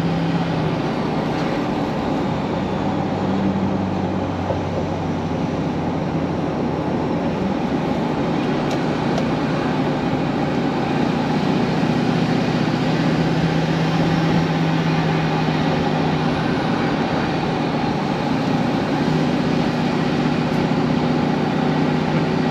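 Steady engine and road noise of a car being driven. The engine's low hum shifts in pitch a few times as the speed changes.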